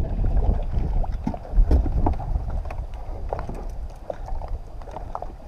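Wind rumbling on the microphone aboard a small fishing boat, with a few light knocks and clicks scattered through it.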